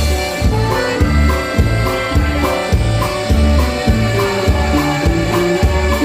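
Live norteño band music: accordion with brass over bass and drums, a steady dance beat of about two strokes a second.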